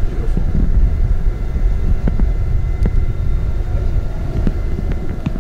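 Steady low rumble of a river tour boat underway, with wind buffeting the microphone and a few faint clicks.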